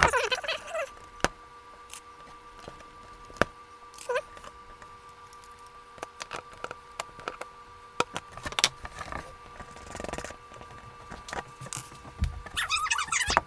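Scattered clicks, taps and scraping of plastic parts being handled and pried while a quartz clock movement is worked loose from the clock, with short squeaky sounds right at the start and again near the end.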